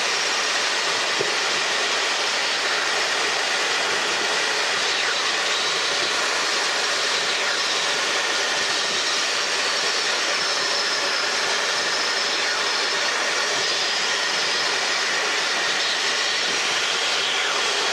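Steady drone of a light helicopter's engine and rotors inside the cockpit in level cruise flight, with faint steady whines over the noise.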